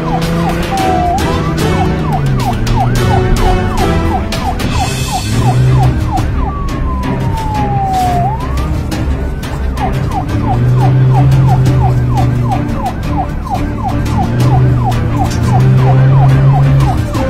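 Police siren in a fast yelp, rising and falling several times a second, with a long falling wail about six seconds in, over background music with low sustained notes and a steady beat.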